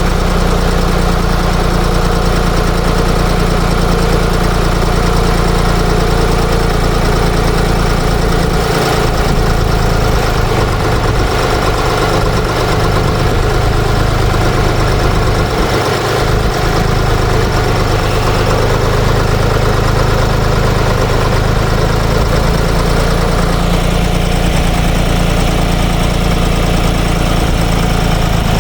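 Ditch Witch trencher-backhoe's air-cooled three-cylinder Deutz diesel running steadily, loud and unbroken.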